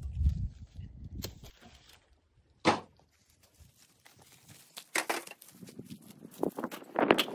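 Cut cactus stems being handled and stacked on dry ground: a loud single knock a little over a third of the way in, then scattered knocks, crunches and footsteps that thicken near the end. A low rumble at the start.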